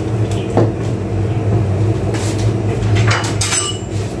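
A steady low hum throughout, with a few brief knocks and clatters of things being handled, mostly between about two and three and a half seconds in.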